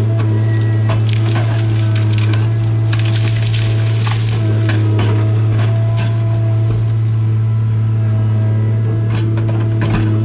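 Tigercat 855C harvester's engine and hydraulics running at a steady drone while its LogMax 7000 head grips and handles hardwood. Scattered cracking and snapping of wood and branches runs through it, thickest in the middle.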